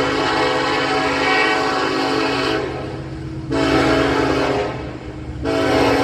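Diesel locomotive's air horn blowing a chord. A long blast breaks off about two and a half seconds in, a shorter blast follows about a second later, and another blast starts near the end, all over the steady rumble of the train.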